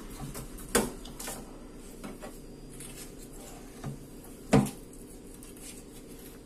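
Knife and a whole snook knocking against a stainless steel sink as the fins are cut off: a few sharp clanks and knocks, the loudest two just under a second in and past the middle, over a low steady hum.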